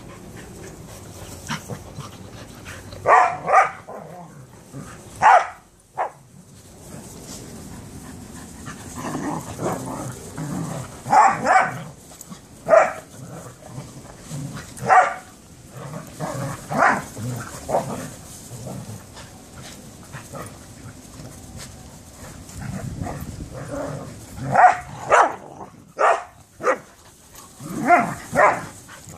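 Several dogs, mostly Australian Shepherds, play-fighting, with short sharp barks every few seconds and low growling in between. The barks come in quick pairs around the middle and near the end.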